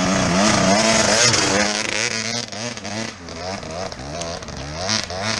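Enduro dirt bike engines revving up and down in quick bursts as a rider works the throttle up a steep, rough hill climb.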